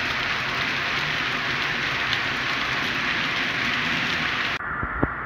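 HO-scale model cement wagons rolling past on the track, with a steady hiss of their wheels on the rails. The sound cuts off abruptly near the end, followed by a single knock.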